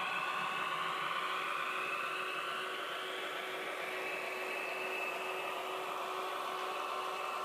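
HO scale model diesel locomotives running along the layout track, a steady whirring hum.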